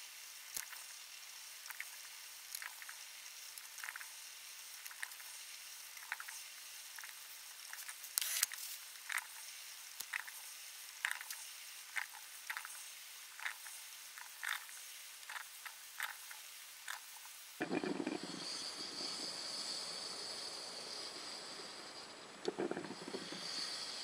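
Small electric percolator perking: irregular pops and spurts of hot water up the stem into the glass knob in the lid, one or two a second. About two-thirds through, it turns into a steadier hiss with a few gurgles.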